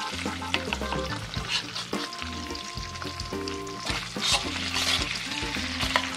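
Diced chicken breast sizzling in hot oil in a wok, being stir-fried with a metal spatula that scrapes and turns it again and again. Soft background music plays underneath.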